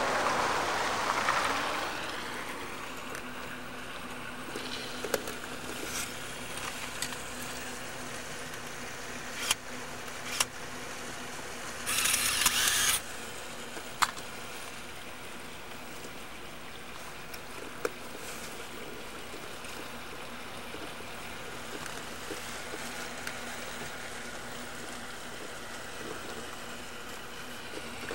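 Camcorder handling noise over steady hiss and hum: a rush of noise in the first two seconds that dies away, scattered sharp clicks, and a short harsh rustle about twelve seconds in.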